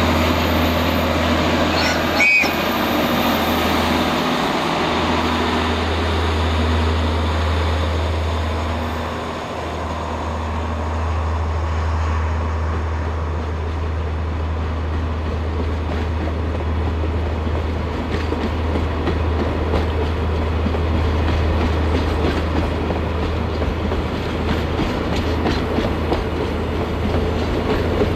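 Diesel train passing: a steady low engine drone with wheels clattering over the rail joints, the clickety-clack growing more regular in the second half. A single sharp click sounds about two seconds in.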